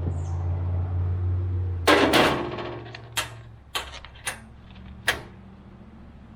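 Metal clanking and knocking on a Woodland Mills bandsaw mill as a new band blade is fitted: one loud clatter about two seconds in, then four sharp knocks spaced over the next few seconds. A low steady hum runs underneath and fades out after about three seconds.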